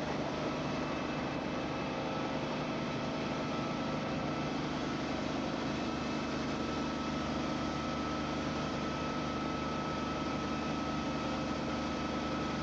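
Helicopter running steadily, heard from inside the cabin: a constant engine and rotor drone with a steady high whine over it.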